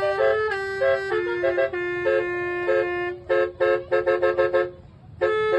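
Basuri bus horn, a multi-trumpet musical air horn, playing a melody in held and short notes, with a quick run of short staccato notes just past halfway and a brief pause near the end.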